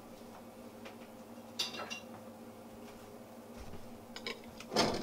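Metal cutlery handled against a glass plate: a few light clicks and short scrapes, with one louder scrape near the end, over a faint steady hum.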